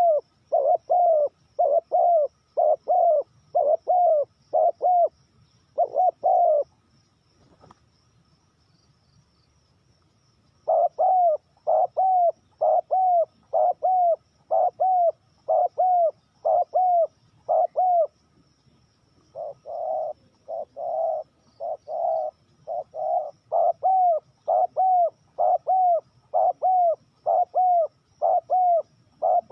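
Spotted dove cooing: a steady run of short, low coos about two a second. The coos stop for about four seconds early on, then resume. A faint high chirping runs underneath.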